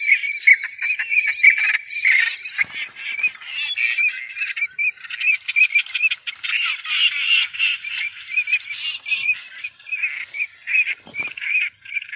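A dense chorus of rapid, high chirping calls from small animals, several calls a second without a break, with a couple of faint thuds.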